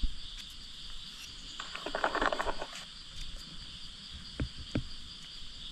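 Steady, high chorus of insects chirring, with a brief rustle about two seconds in and a few light knocks.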